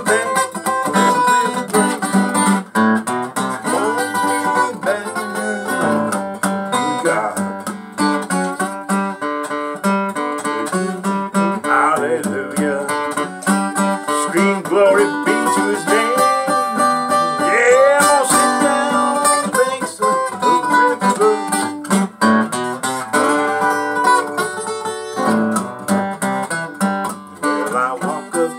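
Takamine EF360S-TT steel-string acoustic guitar played solo in a slow blues, with picked single notes and strummed chords and a jangly tone.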